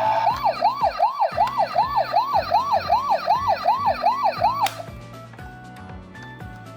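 Toy ambulance's electronic siren cycling quickly up and down, about three sweeps a second, then cutting off suddenly about two-thirds of the way in. Background music with a steady beat runs underneath and is left on its own after the siren stops.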